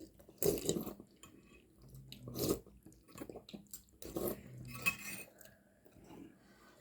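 Spoons and cups clinking while goat leg soup is sipped and eaten, in several short bursts of clatter and slurping.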